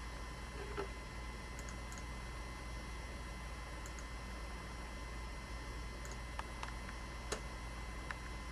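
Steady faint hiss and low hum with a thin steady tone, broken by a few faint sharp clicks, the clearest about seven seconds in.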